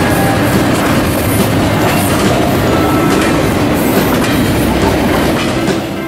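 Train running on rails: a steady, loud rumble and clatter of wheels.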